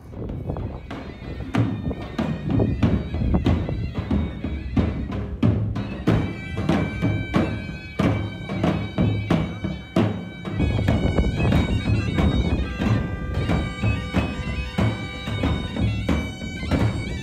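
Wedding street band: large double-headed drums beaten in a fast, dense rhythm, joined about six seconds in by a shrill reed pipe (zurna) playing held notes and a melody over them.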